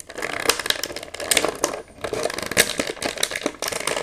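Clear plastic blister tray of an action-figure package crinkling and crackling as it is handled and a figure is worked out of it: a dense run of snaps and rustles.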